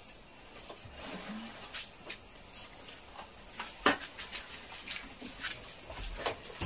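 A steady, high cricket trill, with scattered clicks and knocks of kitchen containers and utensils being moved by hand; the sharpest knock comes about four seconds in.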